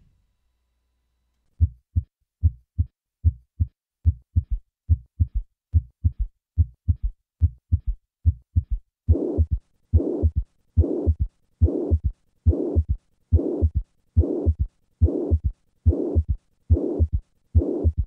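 Recorded heart sounds of severe mitral regurgitation, beating at about 70 a minute. The beats start as normal lub-dub sounds, then have a third heart sound added after the second sound. From about nine seconds in, a loud blowing systolic murmur fills the gap between the first and second sounds of each beat.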